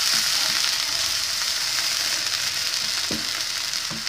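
Grated carrot sizzling in oil and a little water in a nonstick frying pan, stirred with a wooden spatula that knocks against the pan a few times.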